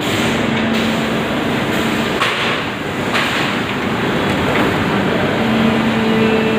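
Windsor NT 350 3C three-colour injection moulding machine running: a loud, steady mechanical din with a hum that comes and goes, and two short hissing rushes about two and three seconds in.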